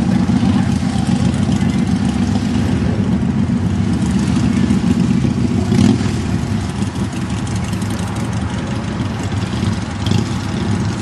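Motorcycle engines running with a steady low rumble, swelling briefly about six seconds in.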